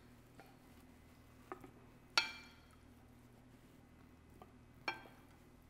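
Wooden spoon knocking against a stainless steel skillet while carrots are spooned out, three knocks, each leaving the pan ringing briefly; the loudest is about two seconds in.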